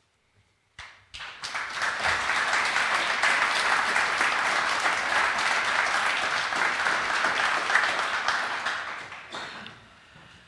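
Audience applauding. The clapping starts about a second in, holds steady, and dies away near the end.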